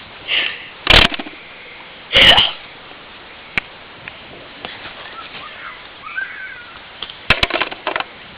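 A sharp bang about a second in, and a second, longer and louder burst about a second after it. Then a faint glide in pitch, and a quick run of sharp clicks near the end.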